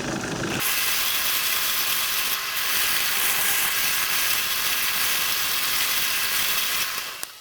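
Lathe tool cutting into a spinning 2x4 blank on a wood lathe: a steady, rough scraping hiss. It starts under a second in and stops near the end.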